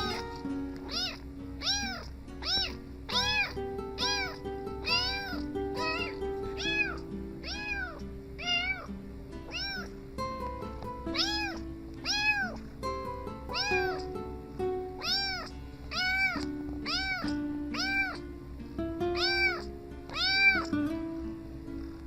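Cat meows repeating about twice a second in an even rhythm, over a music backing of held notes.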